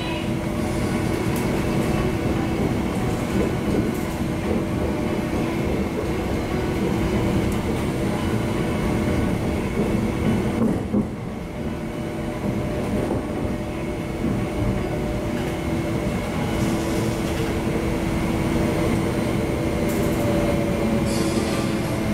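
Interior running noise of an MTR IKK-train electric multiple unit between stations: a steady rumble of wheels on track under a steady hum, briefly quieter about eleven seconds in. Near the end a tone starts to fall slowly in pitch as the train begins to slow.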